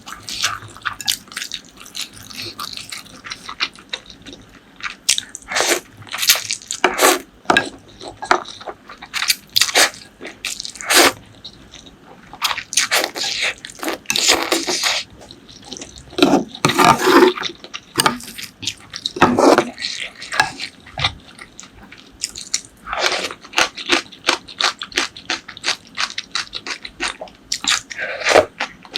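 Close-miked eating: wet chewing and lip smacks in quick irregular clicks, with a few longer, noisier stretches about halfway through.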